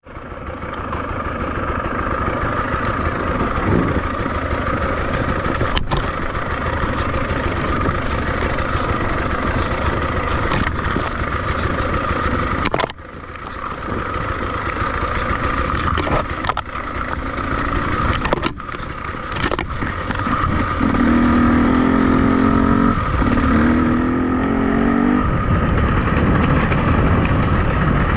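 An off-road vehicle's engine running under load throughout. Its level drops suddenly about 13 seconds in and again near 18 seconds, then it revs up with its pitch climbing in short steps over the last few seconds.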